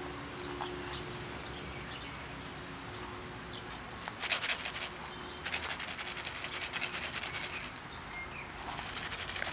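Crackly rustling in two bursts, a short one about four seconds in and a longer one about a second later, over a faint steady hum.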